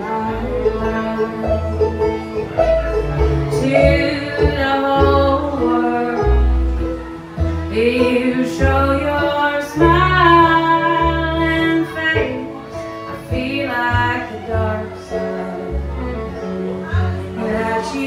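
Small acoustic bluegrass band playing live: a woman singing lead over her strummed acoustic guitar, with banjo, fiddle and upright bass.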